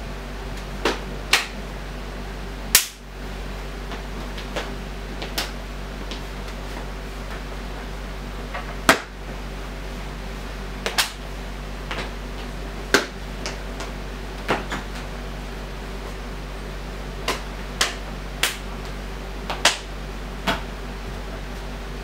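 Sharp, irregularly spaced cracks and slaps from a martial artist's fast strikes and footwork while performing a Seven Star Mantis boxing form, the loudest about three seconds in and again about nine seconds in, over a steady low hum.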